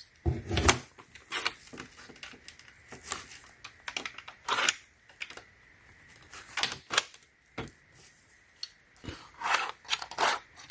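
Irregular clicks and knocks from a socket organizer's socket holders being worked loose and shifted along their rail.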